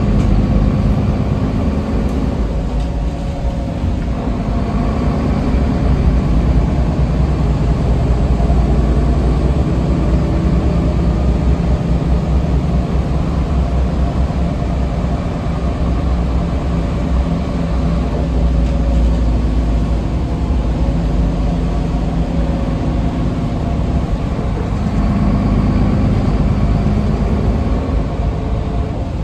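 Solaris Urbino III city bus's engine and drivetrain running, heard from inside the passenger cabin: a steady low drone with faint whining tones above it.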